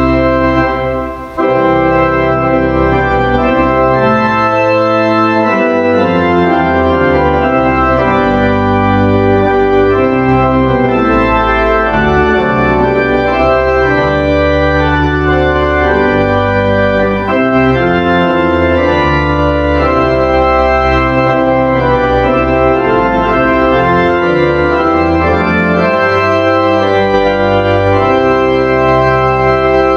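Organ playing music in slow, sustained chords, with brief breaks between phrases about a second in and again past the middle.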